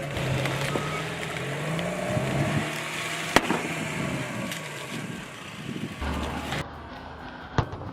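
A car running slowly, its tyre rolling over objects, with one sharp crack about three and a half seconds in.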